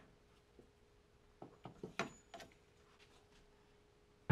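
A few light clicks and knocks from a large socket wrench tightening the oil filter cap, between stretches of quiet, with a sharper knock at the very end.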